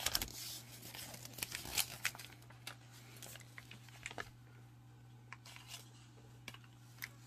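Paper build booklet being handled and put aside, rustling and crinkling with sharp crackles over the first two seconds or so, then only a few faint scattered ticks. A steady low hum runs underneath.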